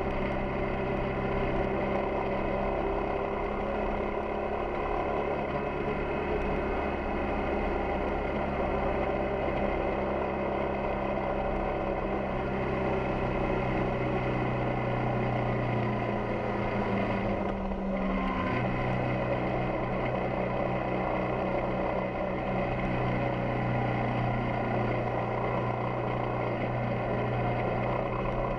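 Yamaha XTZ 250 Ténéré's single-cylinder four-stroke engine running steadily under way. About eighteen seconds in, the revs dip briefly and then recover.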